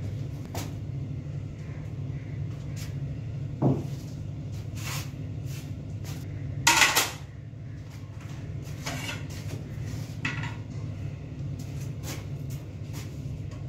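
Tableware being handled and set down on a cloth-covered table: scattered soft clicks and knocks, a duller thud about four seconds in and a louder brief scrape about seven seconds in, over a steady low hum in the room.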